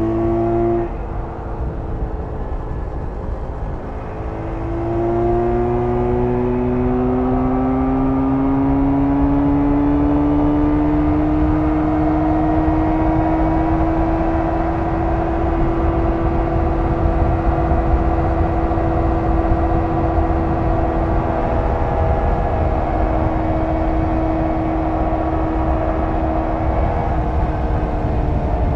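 1994 Jawa 350 two-stroke twin running under way on the motorcycle. The engine note drops about a second in, then it pulls again from about four seconds in, rising slowly to a steady cruise and easing off near the end.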